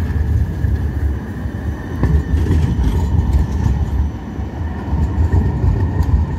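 A light rail tram passing close by and pulling away: a loud, continuous low rumble from its running gear on the rails, with a faint steady high tone above it.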